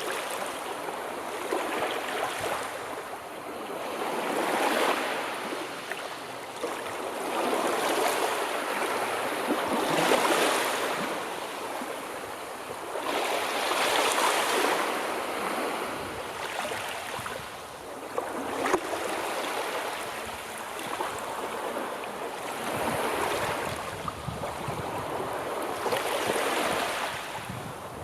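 Sea waves washing ashore, a noisy hiss that swells and falls back every three to four seconds. A brief sharp click sounds once about two-thirds of the way through.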